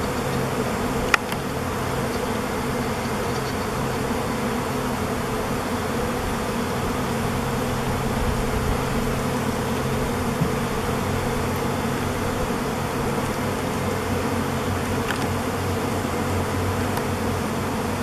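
A honeybee swarm in flight: the steady, dense buzzing drone of a mass of bees in the air as the colony swarms from its hive. A brief click sounds about a second in.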